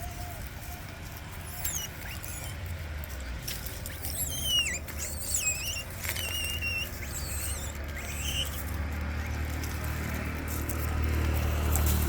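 Monkeys squealing: a run of short, high, wavering squeaks in the middle, with one more a little later, over a low steady rumble that grows louder near the end.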